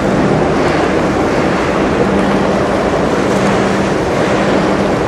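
Steady low engine drone of the heavy-lift cargo ship Hilke passing close by, over a constant rushing noise of water and wind.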